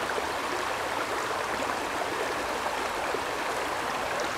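Creek water flowing, a steady rushing noise.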